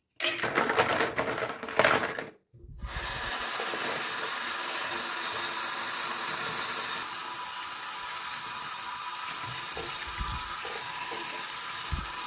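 About two seconds of loud rustling and rubbing, then a short break, then a steady rushing noise like running water.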